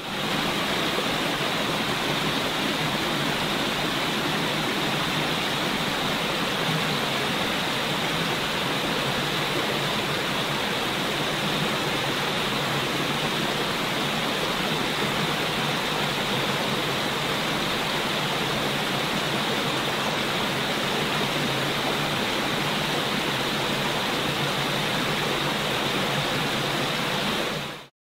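Steady, even rushing of falling water, a waterfall's continuous roar with no change in level.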